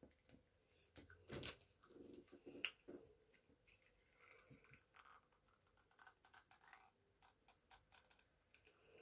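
Near silence: room tone with faint scattered clicks and rustles, a little stronger about one and a half seconds and two and a half seconds in.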